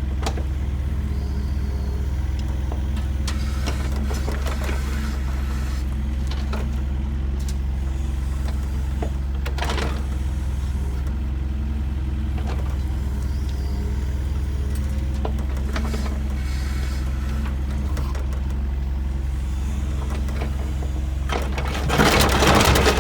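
Heavy construction machine's engine running steadily at a constant speed. Near the end there is a short, louder burst of rattling noise.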